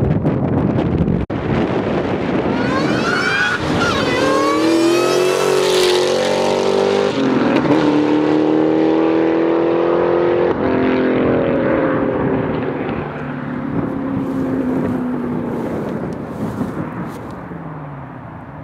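Supercharged V8 of a 2003 Mustang SVT Cobra, running a full aftermarket exhaust, accelerating hard at full throttle. Its pitch climbs and drops back at each upshift, about three seconds apart, then the engine fades into the distance as the car pulls away.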